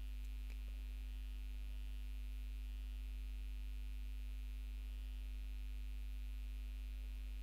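Steady low electrical hum, with a fainter higher tone above it.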